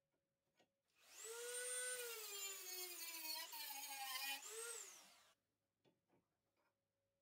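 Corded rotary tool with a small cutoff disc spinning up to a high whine and cutting a metal rod held in a vise. The whine sags in pitch under the load of the cut, rises briefly as the disc comes free, then winds down and stops about five seconds in.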